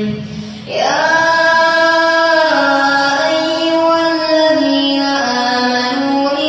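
A boy's voice chanting Quran recitation in a drawn-out melodic style, coming in about a second in and holding long notes that step down and up in pitch.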